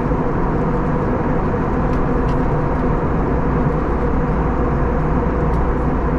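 Steady cabin noise inside an Airbus A321neo in the climb: a loud, even rush of airflow with a steady engine hum carrying a few fixed tones, and a few faint ticks.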